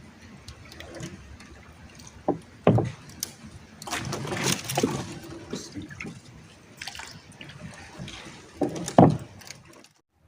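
Water splashing and sloshing in irregular bursts, with a few knocks and thumps; the loudest thump is about nine seconds in, and the sound cuts out briefly just before the end.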